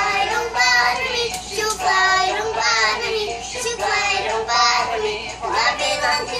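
A young girl singing a song in phrases with short breaks between them.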